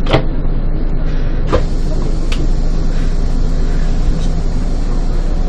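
City bus running on the road, heard from inside: a steady engine and road rumble with a constant low hum, broken by three short, sharp clicks in the first two and a half seconds.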